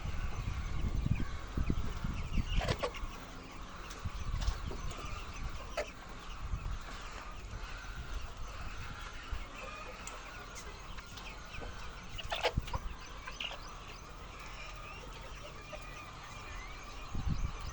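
A flock of laying hens clucking continuously, many birds calling over one another, with a few sharp clicks.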